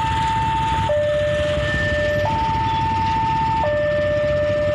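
Railway level-crossing warning alarm sounding its steady two-tone hi-lo signal, each tone held about a second and a half, warning that a train is approaching. Waiting motorcycle engines idle low underneath.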